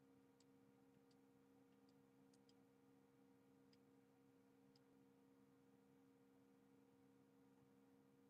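Near silence: a faint steady electrical hum, with about seven faint small clicks in the first five seconds.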